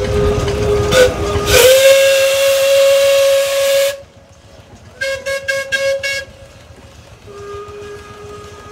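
Steam engine whistle: one long blast of about four seconds, two notes at first, then rising to a single higher note about one and a half seconds in as a loud rush of steam comes with it. Then a quick run of about six short toots, and a fainter, lower whistle near the end.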